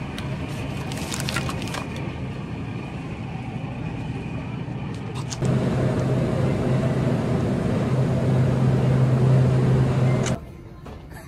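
Supermarket refrigeration noise: a steady fan-and-compressor hiss with a few clicks and rattles in the first second or two. About five seconds in it gets louder and a steady low hum comes in, close to the open dairy cooler. It cuts off suddenly near the end.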